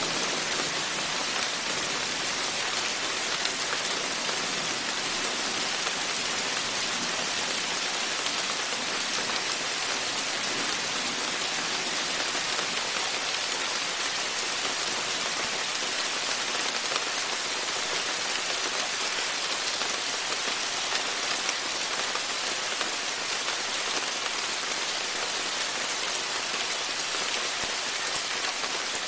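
Rain falling steadily: an even, unbroken hiss of drops that holds at the same level throughout, with no thunder.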